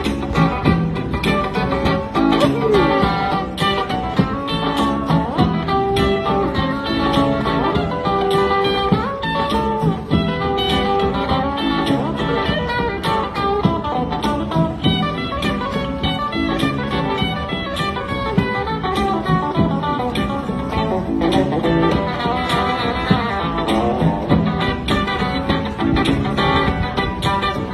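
Electric guitar playing a lively, bluesy tune with a steady beat.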